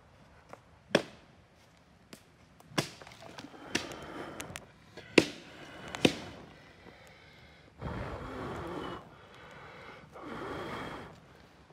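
Dry sticks cracking with sharp pops, about five in the first six seconds, then two longer rushing noises of about a second each.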